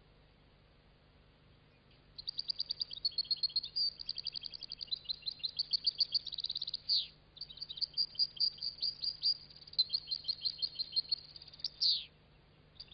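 European goldfinch singing: a long, rapid twittering song of quick high notes that starts about two seconds in, with a short break about halfway through.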